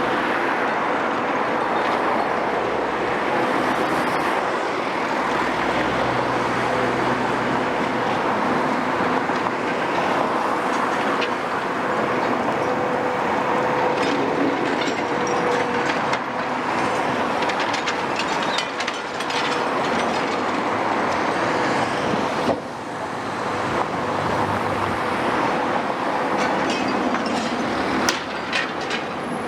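Caterpillar M322C MH wheeled demolition excavator at work, its Cat 3056E diesel and hydraulics running with a steady whine while metal and rubble clank and scrape. A few sharp knocks come near the end.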